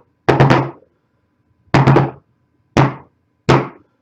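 Knocking on a desk, tapping out SOS in Morse code: quick groups of three knocks for S and slower, evenly spaced single knocks for O.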